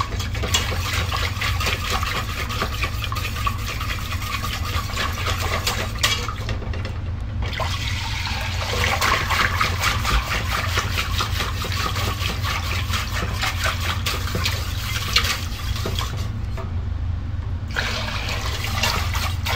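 Wire whisk beating a thick roux-and-milk bechamel base in a stainless saucepan: rapid wet scraping and clicking against the pan over a steady low hum. The whisking breaks off briefly twice, and milk is poured in near the end.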